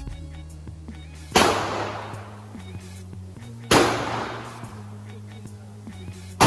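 Gunshots at a shooting range: two about two and a half seconds apart and a third at the very end, each ringing off in a long echo, over background music.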